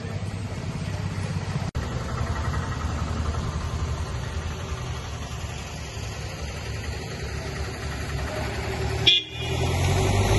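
Steady low outdoor rumble of road traffic with a faint car horn. Near the end there is a sharp click and a brief dropout.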